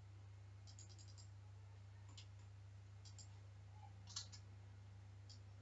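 Faint computer mouse clicks, a handful scattered through, with the loudest pair about four seconds in, over a low steady hum.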